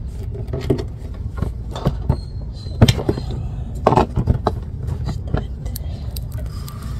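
Scattered clinks and knocks of a socket tool and a plastic funnel being handled at a minivan's transmission drain plug, set to drain off excess automatic transmission fluid, over a steady low rumble.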